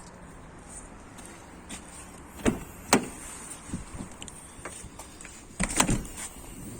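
A few sharp clunks and clicks over a faint steady hum: two strong knocks about half a second apart near the middle, smaller ticks after them, then a tight cluster of clunks about a second before the end.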